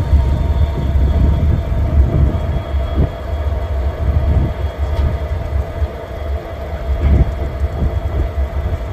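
CSX diesel freight locomotives running and slowly moving a train, with a deep steady engine rumble and a steady hum. A couple of short knocks come about three and seven seconds in.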